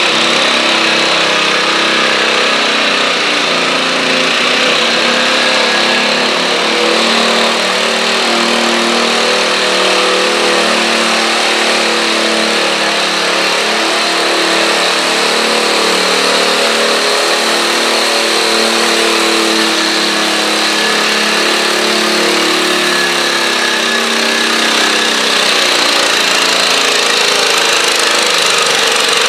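Stock garden tractor engine running hard and steady under load as it drags a stoneboat pulling sled across a dirt track.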